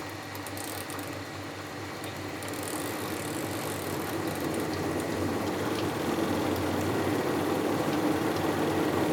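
Panasonic NA-W77FCW1 twin-tub washing machine's spin tub running while tap water pours in for the spin-rinse, a steady mechanical hum mixed with rushing water that grows gradually louder.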